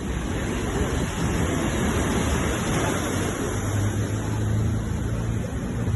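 Sea waves breaking and washing on a shore, a continuous rush of surf with a low rumble underneath.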